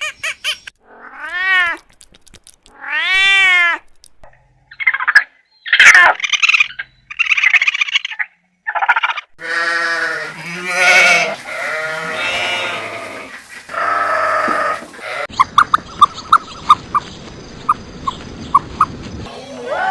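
Cats meowing: two long, drawn-out meows in the first four seconds, then a run of shorter, harsher meows and cries. Near the end the sound changes to a series of short, evenly spaced ticks over a faint steady high tone.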